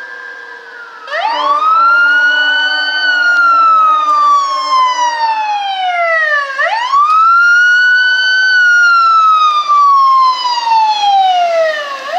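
Ambulance siren switched on about a second in, sounding a loud wail. Each cycle rises quickly in pitch and then falls slowly over about five seconds, twice, with a third rise starting near the end.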